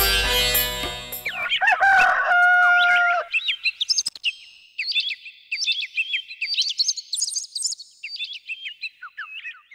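A rooster crows once, then small birds chirp busily in quick, high calls, as a daybreak sound effect. The tail of a music cue fades out at the start.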